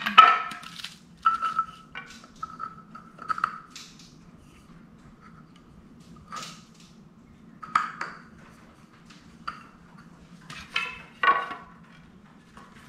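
Metal garment-rack parts and hardware clinking and knocking as the rack is assembled: about ten separate strikes, several ringing briefly like struck metal, over a faint steady hum.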